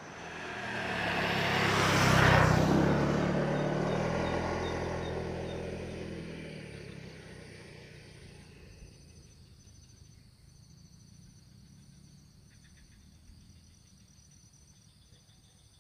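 A motor vehicle passing by: its engine swells to a peak about two seconds in, then fades away over several seconds, leaving faint insects chirping.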